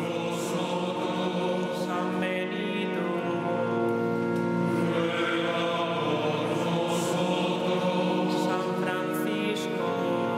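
A choir singing a slow liturgical chant in long held notes.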